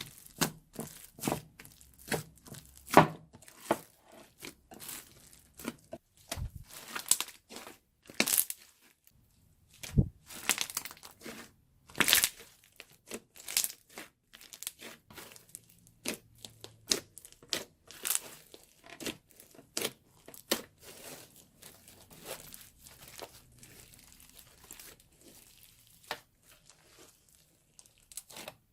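Slime squeezed out through a piping bag, a dense run of irregular crackles and pops.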